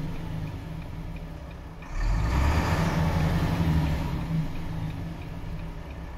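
Volvo FM 11.370 truck's 11-litre six-cylinder diesel running, heard from inside the cab. The engine note steps up noticeably louder about two seconds in, with a brief hiss, then eases off.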